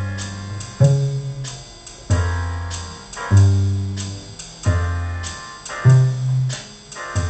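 Keyboard backing track: piano chords struck about once every 1.2 seconds, each with a low bass note under it, with light cymbal ticks in between.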